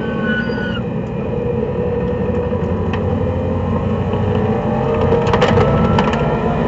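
Racing car engine heard from inside the cabin with road and wind noise. The engine eases off as the car brakes for a corner, then pulls hard and rises in pitch as it accelerates out, with a few sharp clicks about five seconds in.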